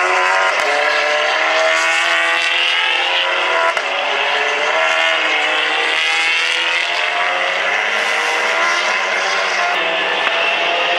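Several touring-car racing engines running hard, an Audi RS3 and a VW Golf among them. Their pitch climbs and drops back again and again as they accelerate and pass.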